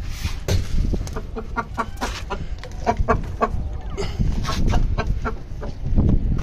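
Chickens clucking in a run of short calls, about three a second, over a low rumble.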